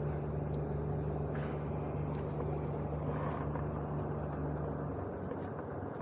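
Small boat outboard motor running steadily at low speed, then cutting out about five seconds in.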